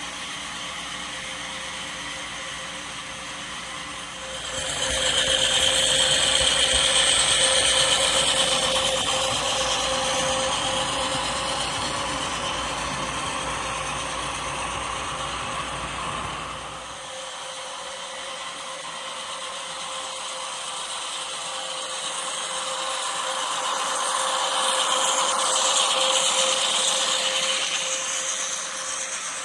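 HO scale model freight train of tank cars and boxcars rolling along the track, a steady clicking and rattling of the small wheels over the rails with a faint steady hum. It gets louder about five seconds in as the cars pass close, eases off after about seventeen seconds, and swells again near the end.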